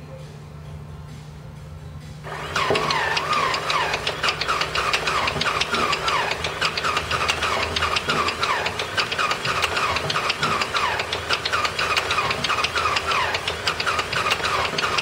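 Cessna 195's seven-cylinder Jacobs radial engine starting for the first time after 26 years in storage: a low steady hum, then about two seconds in the engine fires and keeps running loudly with an uneven, rapid firing beat.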